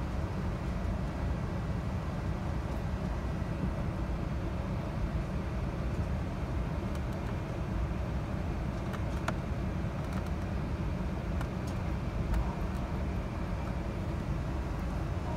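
Steady low rumble and hiss inside the cabin of an Airbus A380-861 as it taxis, its GP7200 engines at low power, with a few faint clicks in the middle.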